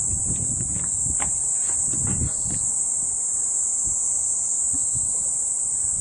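Steady, high-pitched shrill of insects without a break, with a few soft low knocks in the first couple of seconds.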